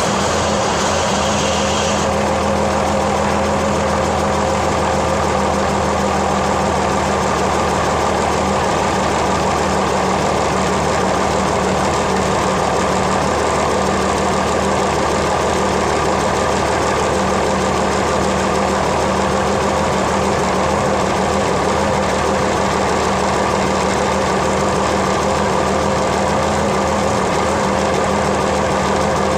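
Mitsubishi in-line SOHC engine idling steadily at an even speed.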